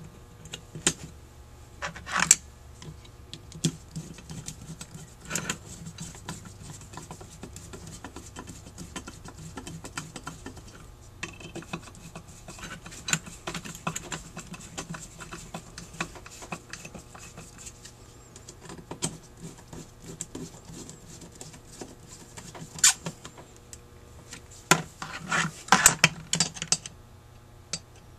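Screwdriver driving and tightening the screws that hold a Rochester 4GC carburetor's throttle body to its float bowl, while the carburetor is handled on the bench. Scattered small metal clicks and scrapes, with louder clattering knocks about two seconds in and again near the end.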